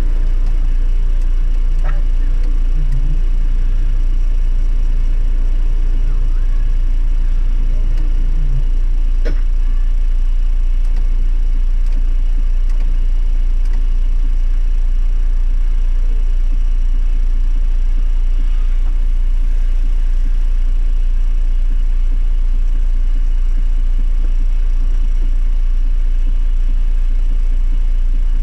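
Steady low rumble of a 105-series Toyota Landcruiser running, heard from inside the cabin, with a single sharp click about nine seconds in.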